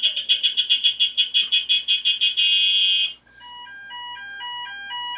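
Played-back electronic horn sound effect: a high tone pulsing rapidly, about seven times a second, for about three seconds. It cuts off and gives way to a stepped electronic beeping tune of short alternating notes.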